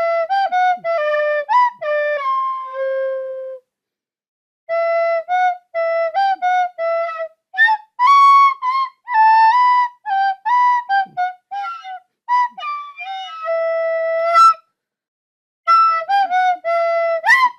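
Solo flute-like wind instrument playing a slow melody in separate, detached notes, in phrases broken by short pauses.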